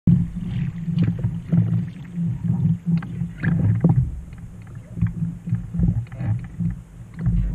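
Kayak paddle blade sweeping and skipping across the water's surface, splashing irregularly, with a steady low rumble underneath.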